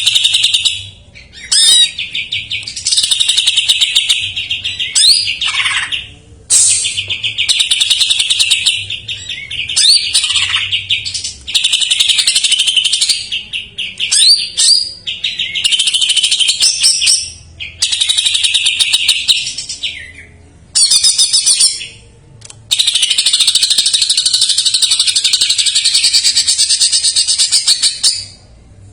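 Green leafbird (cucak ijo) singing loudly: a run of rapid chattering, trilling phrases with quick whistled sweeps, broken by short pauses, with a longer unbroken phrase near the end. The song is stuffed with mimicry of other birds' calls.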